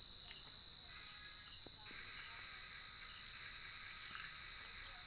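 Faint, steady high-pitched trilling of insects at night, with a second, lower buzzy chorus joining about two seconds in.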